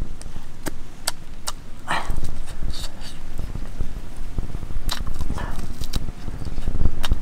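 A man eating roast guinea fowl off the bone: chewing with frequent sharp mouth clicks and smacks, and two short rough sounds about two seconds and five and a half seconds in.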